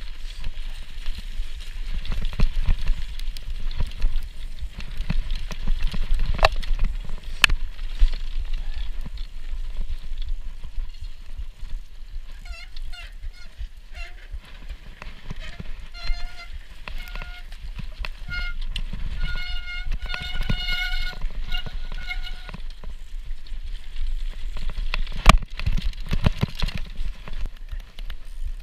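Mountain bike descending a snowy, icy trail: constant rattle and tyre noise with sharp knocks over bumps. In the second half come runs of short, steady-pitched squeals from the disc brakes as the rider brakes downhill.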